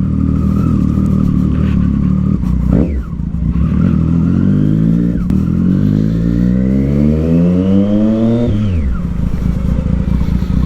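Triumph Street Triple 675's three-cylinder engine through a loud Yoshimura aftermarket exhaust, running steadily, blipped once about three seconds in, then the revs climb smoothly for about five seconds before the throttle shuts and the pitch drops away suddenly.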